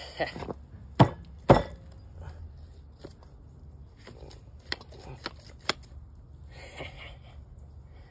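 Sharp knocks and clicks of a steel CV axle half shaft and its cut-off joint being handled and worked apart: two loud knocks about a second in, then lighter clicks and a short scrape.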